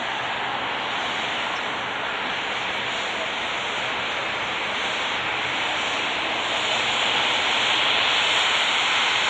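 Boeing 777-300ER's twin GE90-115B turbofan engines running with a steady jet rush that grows louder and brighter about seven seconds in, as thrust builds for the takeoff roll.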